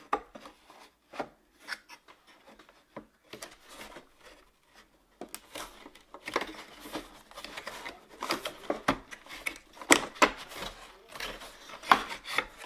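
Wooden tray-holder pieces rubbing, scraping and clicking as the shelf ends are pushed into the slots of a side panel. The sounds come in scattered bursts that get busier after about five seconds, with a couple of sharper knocks in the second half.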